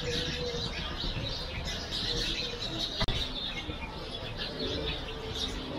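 A chorus of many small birds chirping over a low outdoor background rumble, with one sharp click about three seconds in.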